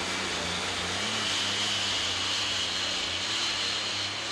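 Super stock pulling tractor's turbocharged diesel engine running flat out as it drags a weight-transfer sled down the track: a loud, steady roar with a high whine over it.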